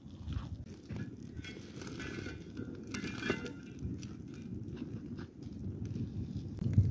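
A wood fire crackling and burning under an iron saj griddle set on stones, with scattered clicks and scrapes as the griddle is put down and rubbed by hand.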